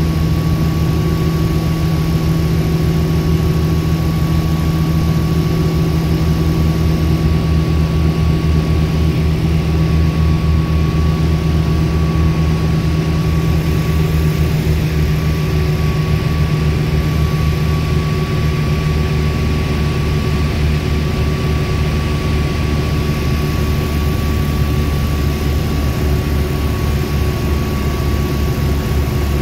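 Small propeller aircraft's engine and propeller running steadily, heard from inside the cockpit, with a thin steady whine on top of the drone.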